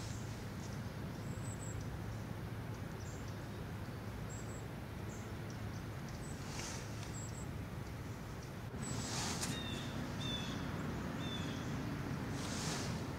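Outdoor ambience: a steady low rumble with faint, short high-pitched bird chirps scattered through, three short bird calls about ten seconds in, and a few brief rushes of noise. It gets a little louder about nine seconds in.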